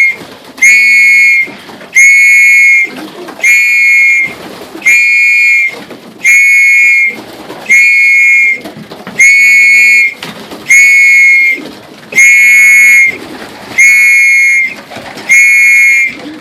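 A whistle blown in a steady series of short, high blasts, about one every second and a quarter, each held for well over half a second.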